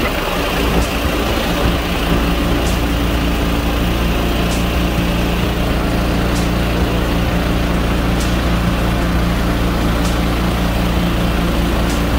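Mudskipper 16 hp 420cc longtail mud motor running steadily at cruising throttle, pushing an aluminium jon boat along the river, with water rushing past the hull. A faint tick recurs about every two seconds.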